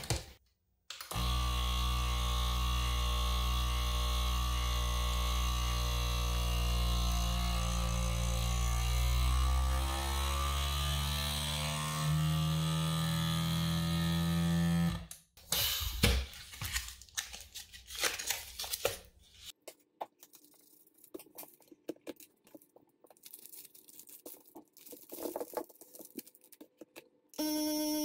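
FoodSaver FM2000 vacuum sealer's pump running steadily as it draws the air out of a bag of corn cobs, its pitch rising slightly near the end, then stopping suddenly about fifteen seconds in. After that come a few clicks and handling sounds.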